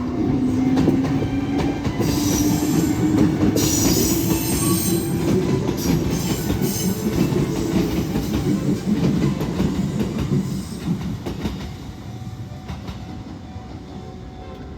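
Kintetsu narrow-gauge electric train passing, its motor whine slowly rising in pitch as it picks up speed, with wheels clicking over rail joints and points and a brief high squeal a few seconds in. The sound fades after about eleven seconds.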